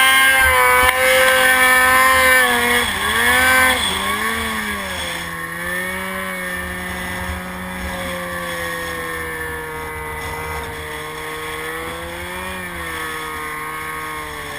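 Polaris RMK mountain snowmobile engine running under throttle on a climb. The pitch dips and picks up twice about three to four seconds in, then holds lower and steadier while the sound grows quieter.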